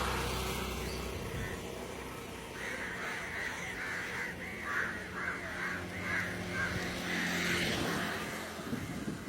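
A crow cawing repeatedly, about nine harsh caws in quick succession starting a few seconds in, over a steady rumble of busy road traffic.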